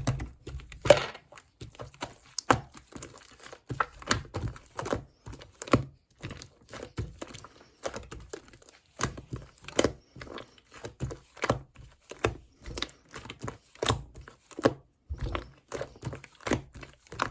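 Slime being squished, pressed and stretched by hand, giving irregular crackling clicks and small pops, several a second.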